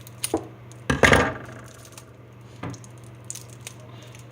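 A few short knocks and clatters of small hard objects being handled on a table, the loudest about a second in, over a steady low hum.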